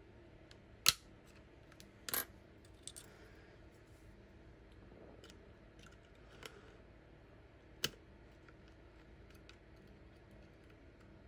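Sharp metallic clicks and clinks of needle-nose pliers and small pistol parts being worked on a Steyr M9-A1 frame, as the magazine-release spring is eased off its stud. About five distinct clicks, the loudest about a second in, with fainter ticks between.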